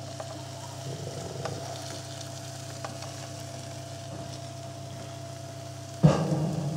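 Water poured from a stainless electric kettle into a ceramic bowl of dried strips to soak them: a soft hissing trickle that turns suddenly into a much louder gush about six seconds in.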